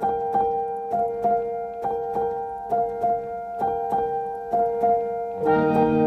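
Instrumental background music: a short pattern of struck notes repeating about twice a second, joined about five and a half seconds in by low sustained chords.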